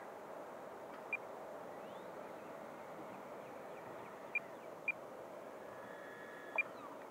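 Freewing 90 mm F-18 electric ducted-fan jet at low throttle on its landing approach, heard at a distance as a faint steady fan whoosh with a slight tone in it. A few short high chirps cut through it.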